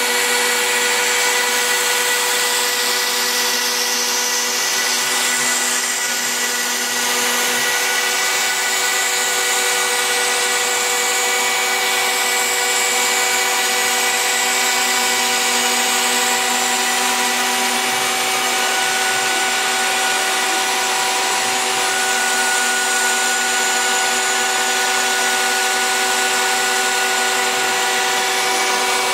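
Handheld router serving as the spindle of a homemade CNC machine, running at full speed while it mills a groove into a wood-veneered board: a steady whine with hiss. A further higher tone joins about two-thirds of the way through.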